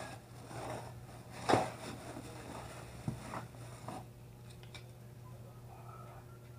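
Bicycle hub parts being handled on a wooden workbench: one loud clack about one and a half seconds in, then a few lighter knocks and scrapes.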